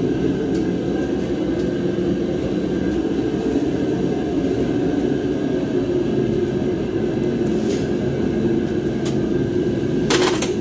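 Steady low rumble of background noise, with a few faint ticks and a sharper metallic clink near the end.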